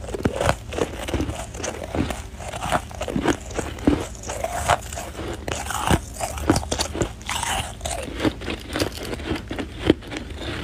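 Packed snow being bitten and chewed close to the microphone: an irregular run of crisp crunches, about one or two a second.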